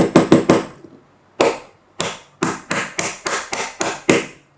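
Repeated hammer blows driving a wheel into a tight-fitting 3D-printed PETG fitting. A quick run of about four taps, a pause around a second in, then about seven sharp strikes at roughly two a second.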